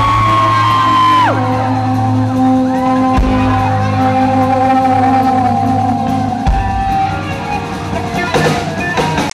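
Live rock band playing, heard through the audience. Long held notes sit over a steady bass and sparse drum hits: a high note drops to a lower one about a second in, and that lower note is held for several seconds.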